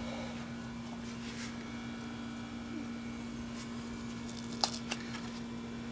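A steady low hum under a few light clicks and taps of engine parts being handled, the sharpest clicks between about four and a half and five seconds in.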